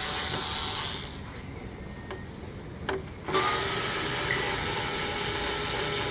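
Power tool undoing the windshield mounting bolts on a motorcycle: a steady mechanical running sound that drops away for about two seconds from about a second in, with a single sharp click shortly before it comes back.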